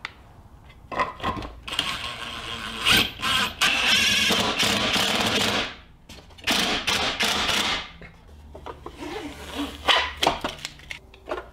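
Cordless drill run in several short bursts, the longest about two seconds, boring a hole through the back of a plastic tilt bin. Quieter clicks and handling noises of the bin follow near the end.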